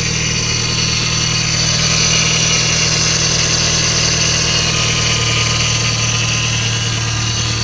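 Mitsubishi Lancer Evolution V's turbocharged 4G63 inline-four engine idling steadily, with a steady high whine over the low engine note.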